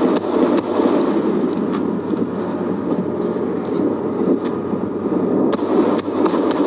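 Steady rushing noise with a few sharp cracks of rifle fire scattered through it, more of them near the end.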